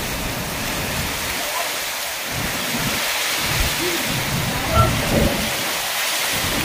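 Heavy rain pouring steadily, with low rumbles of thunder rolling under it, the strongest about five seconds in.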